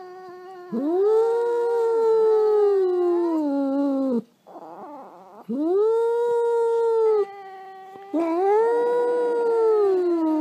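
A small dog howling: three long, drawn-out howls, each rising at the start, holding, then sliding down in pitch, with a brief break between them.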